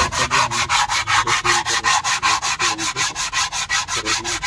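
Rapid back-and-forth hand sanding on a brake part, an even rhythm of about six scraping strokes a second.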